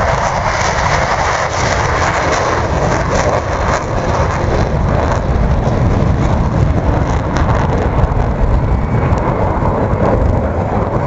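Loud, steady jet engine noise from a formation of four F-16 fighter jets flying overhead.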